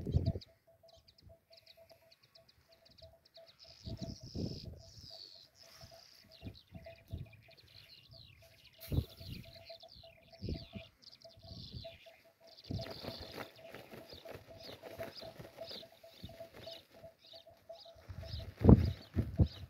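Small birds chirping in quick runs of short high notes, with gusts of wind buffeting the microphone in low rumbles now and then, the strongest near the end.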